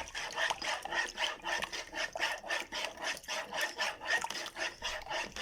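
Lemonade being stirred: a utensil scrapes round and round the container, about four strokes a second, mixing squeezed lemon juice into sugared water.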